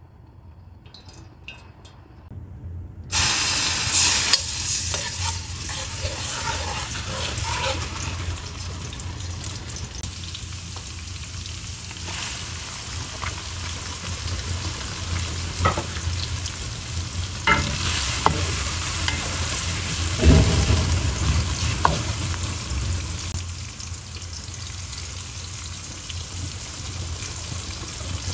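Sliced red onions sizzling as they fry in hot cooking oil in a metal wok. The sizzle starts suddenly about three seconds in, after a quiet start, and carries on with scattered sharp ticks.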